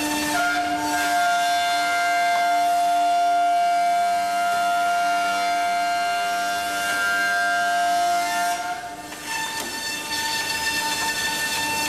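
Busellato Jet Optima C21 CNC machining centre's spindle whining steadily as it machines a wooden door, a strong high tone with a stack of overtones. The pitch shifts just after the start, and about nine seconds in the sound drops away briefly and returns at a different pitch.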